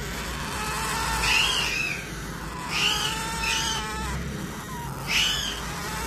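Hungry parrot chicks giving short, high begging calls that sweep downward: one about a second in, two close together around three seconds in, and another just after five seconds.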